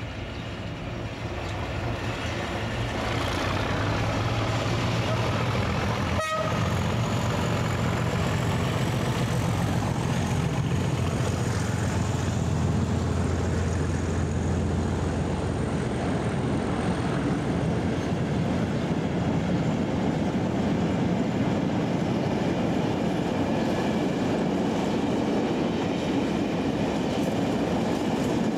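Two diesel locomotives heading a freight train, their engines droning as they approach and pass, growing louder over the first few seconds. The engine sound gives way after about 16 seconds to the steady rumble of the freight wagons rolling by. There is a brief sharp blip about six seconds in.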